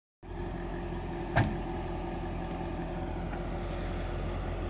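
Jaguar F-Type engine running at a steady idle, with one sharp click about a second and a half in.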